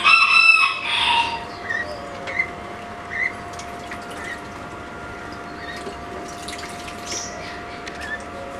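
Water dripping into an indoor rehabilitation pool: scattered small drip blips over a steady machine hum. A short, loud, high-pitched tone opens it in the first second.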